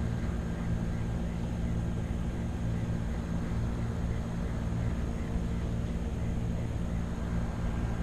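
Steady low mechanical hum with several held low tones under an even wash of noise, unchanging throughout.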